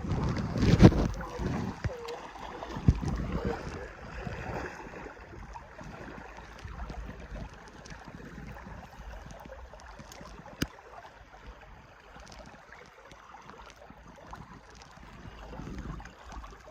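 Wind buffeting the microphone over the steady rush of a shallow trout stream. The gusts are loudest in the first few seconds, and one sharp click comes near the middle.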